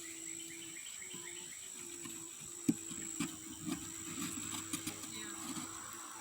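A low, steady hum of honeybees at an open hive, under a high, steady chirring of insects. About two and a half seconds in, a string of light knocks and taps begins and runs for a few seconds.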